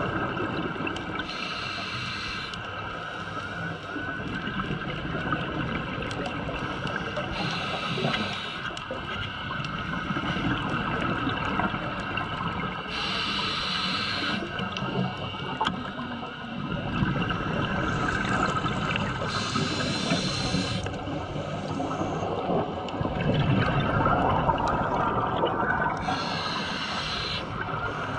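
Scuba diver breathing through a regulator underwater: a bubbling exhale about every six seconds, five in all, over a steady wash of water noise.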